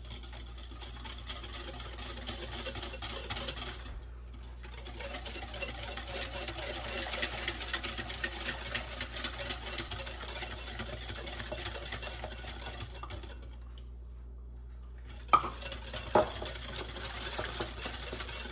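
Wire whisk beating a creamy mayonnaise dressing in a glass bowl, a rapid run of fine ticks of the wires against the glass with a couple of brief pauses. Two sharp knocks near the end.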